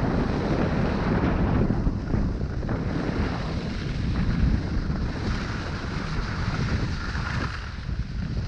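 Wind buffeting a GoPro's microphone while snowboarding downhill, a low rumble, under the hiss of the snowboard sliding over packed snow. The hiss grows brighter about five seconds in.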